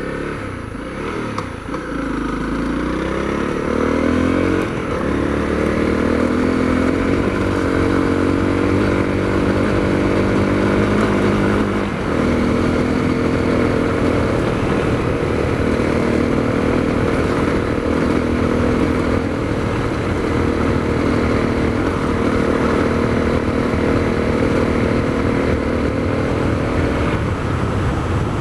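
Honda CRF250L's single-cylinder four-stroke engine running through an FMF Q4 HEX slip-on exhaust while riding. The revs climb over the first few seconds and drop sharply with upshifts about four and a half and twelve seconds in, then hold a fairly steady note.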